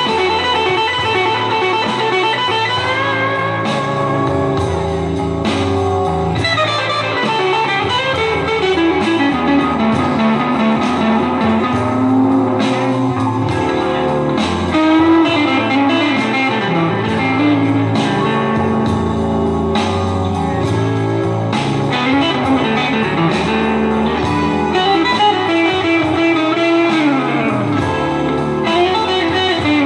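PRS SE Custom 24 electric guitar playing a blues lead solo, with many string bends that slide notes up and back down.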